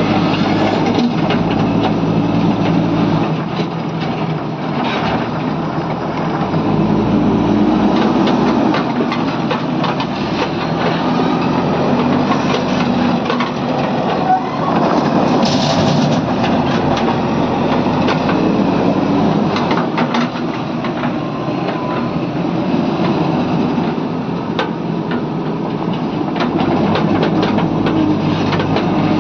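JCB 3DX backhoe loader's diesel engine running steadily under working load, with scattered sharp clanks and knocks.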